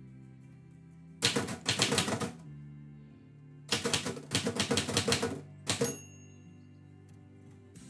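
Manual typewriter typing: two quick runs of key strikes, each lasting about a second, then a short burst, over steady background music.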